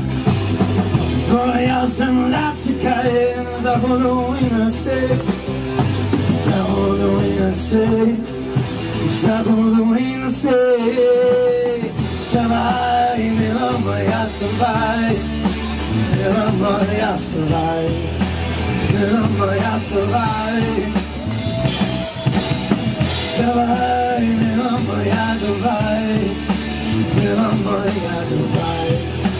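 Live rock band playing amplified through PA speakers: electric and acoustic guitars, drums and a singing voice.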